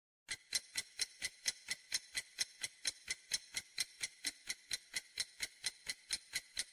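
Countdown-timer sound effect: an even clock ticking, about four ticks a second, starting about a third of a second in, marking the time left to answer.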